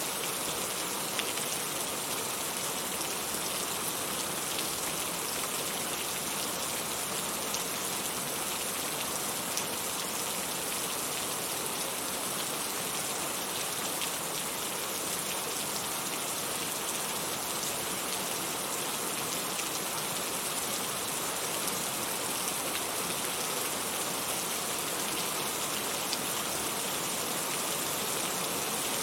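Heavy rain falling steadily, a dense even hiss with fine drop impacts scattered through it.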